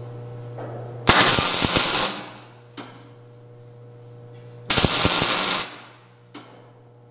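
MIG welder laying two short tack welds, about a second each, joining a steel boxing plate to a Jeep pickup's frame rail: the arc crackles sharply for each tack, with a steady low hum between them.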